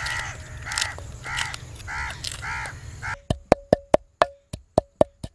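A crow caws repeatedly, about five caws. Then, after a cut, a wooden pestle pounds garlic, ginger and green chillies in a clay bowl, with sharp knocks at about four a second.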